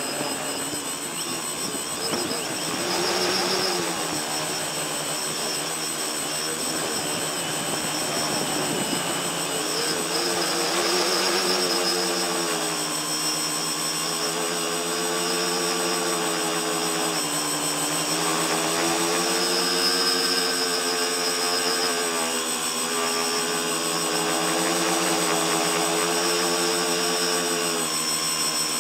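A tricopter's electric motors and propellers whining in flight, picked up by its onboard camera; the pitch wavers up and down as the throttle changes, with a thin steady high whine above it.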